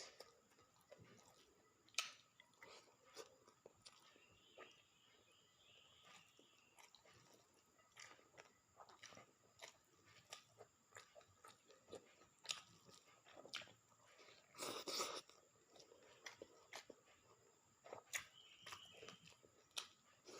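Faint close-up chewing and mouth sounds of a person eating, with scattered small clicks and crunches, and one louder noisy burst about fifteen seconds in.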